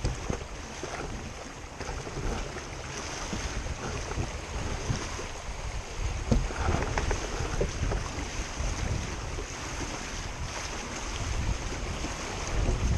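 Wind buffeting the microphone over water rushing and splashing along the hull of a Laser Vago sailing dinghy under way, with a sharp slap about six seconds in.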